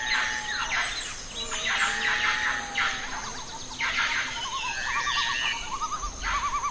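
Several birds calling together: quick chirps sweeping down in pitch over a held whistle, joined by a fast wavering warble in the second half.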